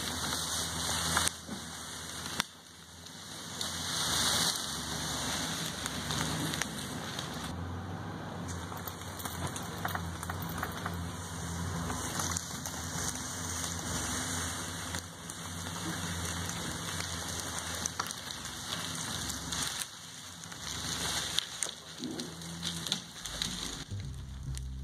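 Pickup truck engine running steadily, then pulling away near the end and dragging a chained log across the leaf-covered ground.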